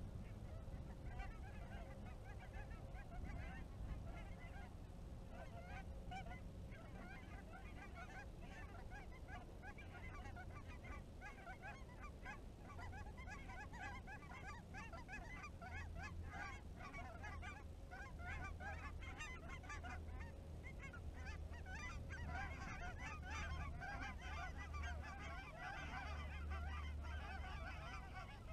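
A large flock of geese calling in flight, a dense chorus of many overlapping honks. The calling grows thicker and louder over the last several seconds as the flock approaches.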